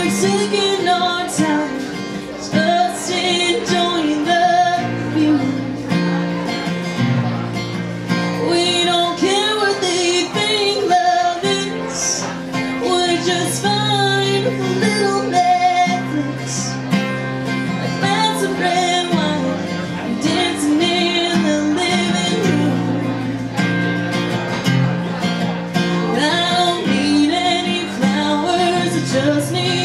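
Live country song: a woman singing over guitar.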